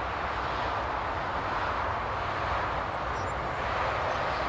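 Boeing 747-8F's four GEnx turbofan engines at takeoff thrust during the takeoff roll, heard from far down the runway as steady, even jet noise with a low rumble beneath.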